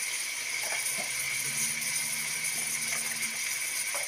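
Steady hiss of chicken, onion and spices frying gently in oil in an aluminium pressure cooker, with a faint low hum for about two seconds in the middle.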